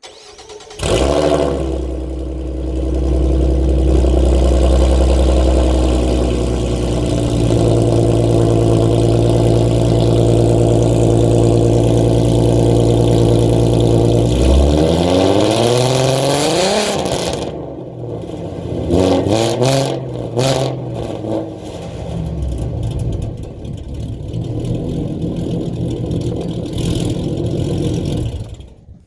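2015 Ford Mustang's 3.7-litre V6 with BBK long-tube headers, an off-road X-pipe and Borla ATAK axle-back mufflers, started from cold: it catches about a second in and runs at a steady fast idle, the idle drops near the middle, then it is revved up once and blipped twice before settling and being shut off near the end.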